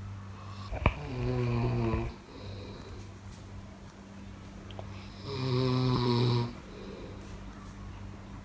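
Snoring: two drawn-out snores about four seconds apart, each lasting about a second, with a short sharp click just before the first.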